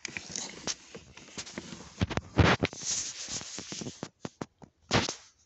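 Handling noise: fingers and clothing fabric rubbing and scraping over a phone's microphone as it is moved about. Irregular rustles and clicks are loudest in the middle, with one more short rustle near the end.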